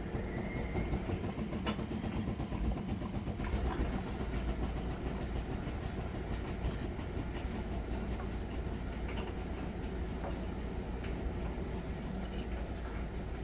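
Miele Novotronic W921 front-loading washing machine running mid-cycle: a steady low hum with scattered light clicks.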